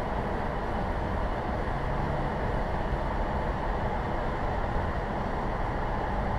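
Steady road noise of a car driving through a road tunnel, heard from inside the cabin: an even low rumble of tyres and engine with no breaks.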